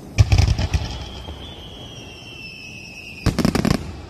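Aerial fireworks shells bursting: a rapid cluster of sharp bangs, then a high whistle falling slightly in pitch for about two seconds, then another quick run of bangs.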